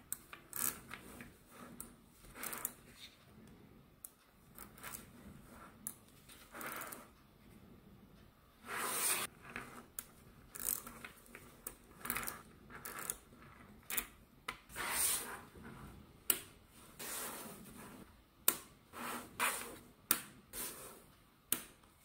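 Small neodymium magnetic balls clicking and snapping together as they are joined into rows, irregular sharp clicks with a few short rattling runs where several balls clatter at once.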